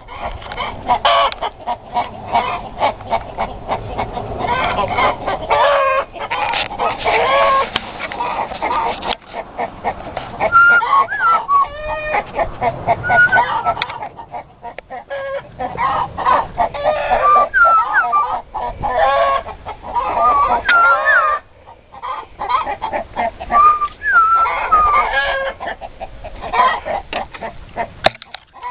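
A flock of chickens clucking and calling continuously, many birds at once.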